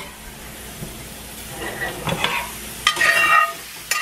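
Chicken strips sizzling in a frying pan while being stirred. From about three seconds in, a spatula scrapes with a ringing sound against a cast-iron skillet as sautéed mushrooms are scooped out.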